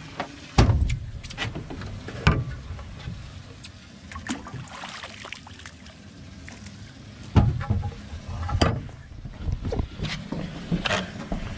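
Scattered knocks and thumps of handling on a fishing boat's deck as the live well lid is worked and a large smallmouth bass is lifted out, over a steady hiss of wind and water.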